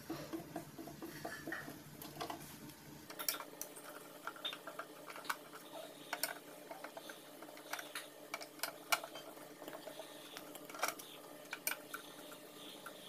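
Screwdriver working the cover screws out of a Lakoni 900-watt inverter welder's sheet-metal case: faint scraping and small metal clicks, with a run of sharper clicks and taps from about three seconds in.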